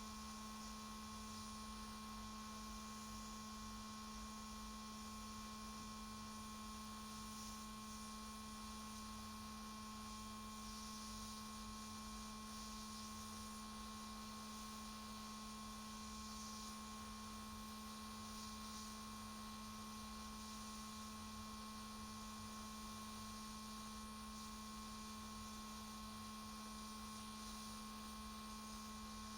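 Steady electrical hum, a low tone with a fainter higher one, over a faint even hiss. It stays unchanged throughout.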